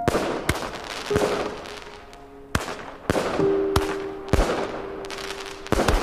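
Fireworks bursting overhead: a string of sharp bangs, roughly one every half second to second, each trailing off in a fading crackle, with a double bang near the end.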